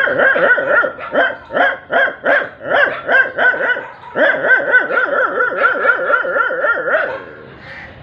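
A man imitating a dog with his voice: a string of high yelping barks, about two or three a second, then a faster run of short yips from about four seconds in that dies down near the end.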